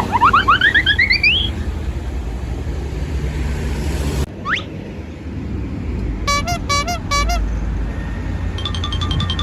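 Vehicle horns over a low engine rumble: a quick run of rising whistle-like glides at the start, a single rising sweep about four and a half seconds in, then short bursts of a multi-tone telolet horn and, near the end, a rapidly repeating alarm-like horn pattern.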